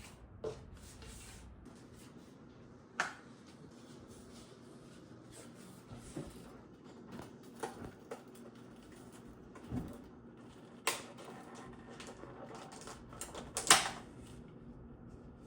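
Scattered light knocks and clicks over a quiet background, as of things being handled. The loudest knock comes about three quarters of the way through.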